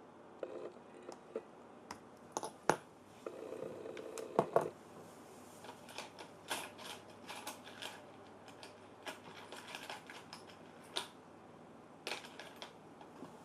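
Irregular small clicks, taps and scrapes from small tools and parts being handled, as in taking apart a small handheld electronic device.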